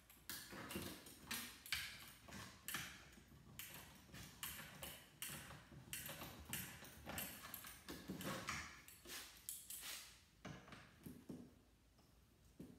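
Pliers working at a nut on a circuit board: faint, irregular metal clicks and taps, about two a second, dying down near the end.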